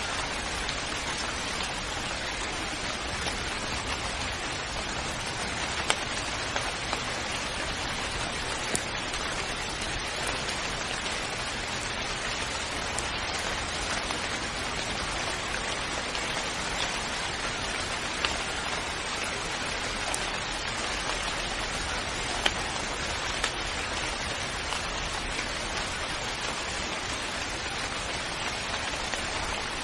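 Steady rainfall, with a few louder single drops striking close by now and then.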